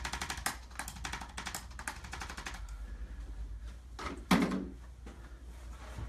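Handheld chiropractic adjusting instrument firing a rapid series of clicking taps against the lower lumbar spine, which stops about two and a half seconds in. A single loud thump follows about four seconds in.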